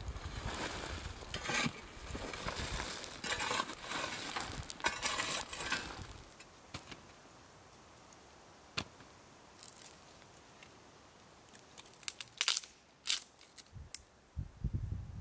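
Shovel scraping and crunching through hot coals and ash for about six seconds, burying a foil-wrapped parcel, then a few scattered sharp clicks and knocks.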